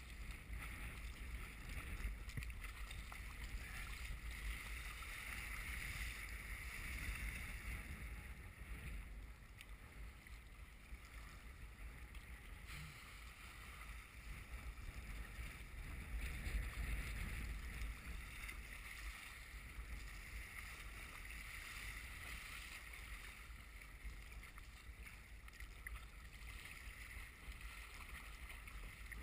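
Strong wind rumbling on the microphone while choppy waves wash and splash against an Eddyline Raven sea kayak's hull, the rush of water swelling and easing with the waves.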